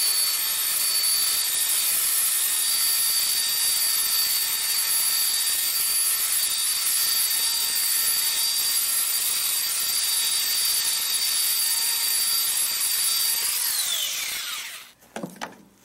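Handheld belt sander running steadily with a constant whine as it sands a weathered wooden board smooth. Near the end it is switched off and winds down, the whine falling in pitch.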